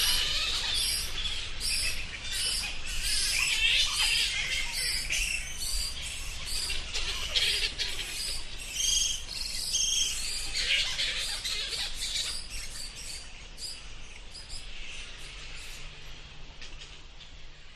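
Bats squeaking: many short, high-pitched chirps overlapping in a busy chatter, gradually fading out near the end.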